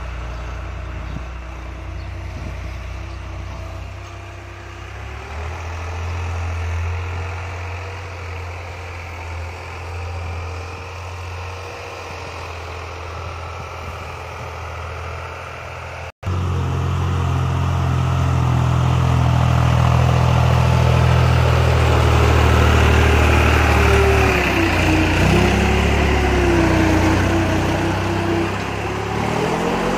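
New Holland 3600-2 tractor's diesel engine running steadily while pulling a tine cultivator through ploughed soil. At first it is distant and quieter. After an abrupt cut about halfway through it is much louder and close, and its pitch wavers up and down near the end.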